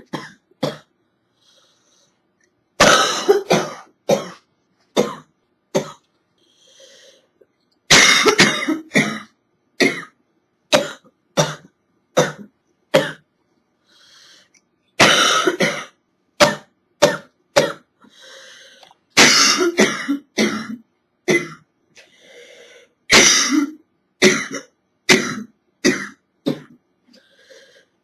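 A girl's hacking cough from a chest cold, coming in repeated fits of several sharp coughs each, about five fits with short pauses between them.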